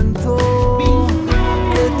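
Folk-rock band music: guitar, bass and drums under a held melody line.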